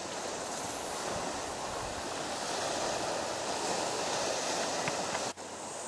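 Steady outdoor rushing noise, like wind and distant sea, with no distinct events; it breaks off for an instant near the end.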